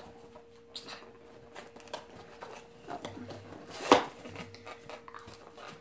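Hands rustling through packaging: crinkle-paper filling and a small cardboard-boxed item being handled, with scattered light clicks and taps and one sharper, louder crackle or knock nearly four seconds in.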